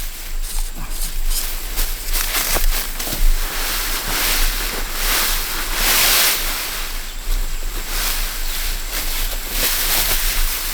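Dry rice stalks rustling and crackling as they are cut and handled by hand in the harvest, a continuous irregular swishing.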